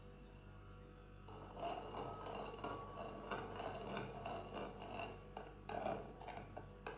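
Steel spoon stirring a white liquid in a terracotta bowl, scraping and clinking irregularly against the bowl's sides and bottom. It starts a little over a second in.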